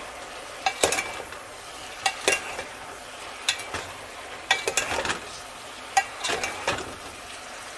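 Metal spoon stirring potatoes and cauliflower in a metal pot, with irregular clinks and scrapes against the pot over a faint steady sizzle of the vegetables frying.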